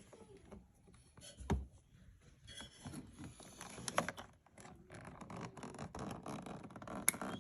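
Faint scraping, rubbing and small clicks of a screwdriver working wires into a plastic wiring-harness connector, then a single sharp click near the end as the connector snaps home.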